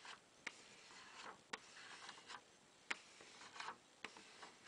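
Plastic card rubbed over polyester (PET) tape on a glass plate, pressing the tape down: faint scraping swishes broken by a few sharp light clicks.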